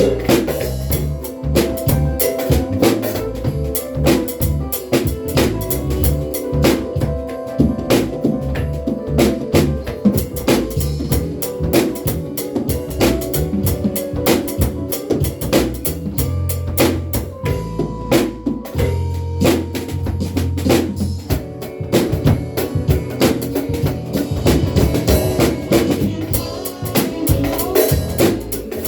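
Drum kit played in a steady groove, with kick, snare and rim clicks, along with a recorded song whose bass line and keyboard chords sound underneath.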